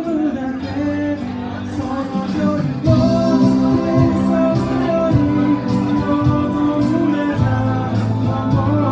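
Live band music with a singer, the band built around an electronic organ. The backing becomes fuller and louder about three seconds in.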